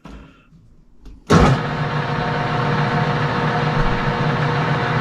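Metal lathe switched on about a second in: its motor and spindle come up abruptly and then run steadily, a continuous machine hum with a steady tone, turning a brass bar before the knurling wheels are tightened onto it.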